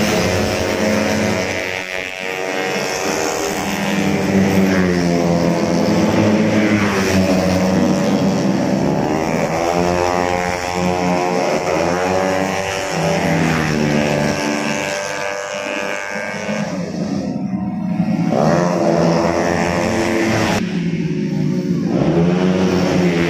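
Tuned 130cc automatic scooter engines racing past one after another, each one's pitch climbing and falling as it revs and goes by, over a continuous drone of more engines on the circuit.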